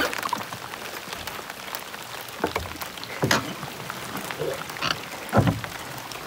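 Heavy rain falling on lake water and on a canoe, a steady patter, with a handful of short knocks scattered through it, the loudest about five seconds in.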